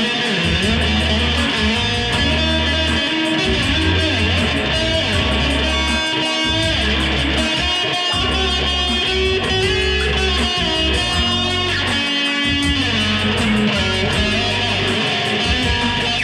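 Electric guitar played over a backing track with a steady bass line.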